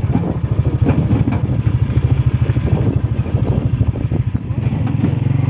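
Motorcycle engine running steadily at low revs, its rapid firing pulses heard as a continuous low putter.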